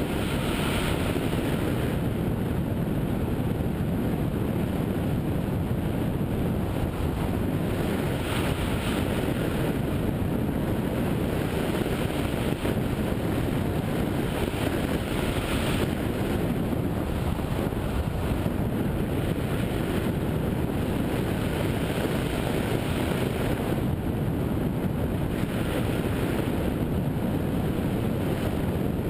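Steady rush of wind over a hang glider's camera microphone in flight, with a hissier swell every several seconds.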